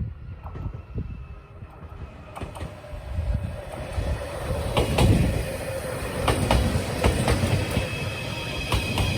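A train running on rails, with a low rumble and the sharp clicks of wheels over rail joints. About eight seconds in, high steady whining tones join in.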